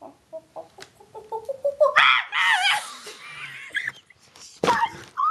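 A person imitating an animal with the voice: a quickening run of short hoots, then a loud, high, wavering screech, and a short loud burst near the end.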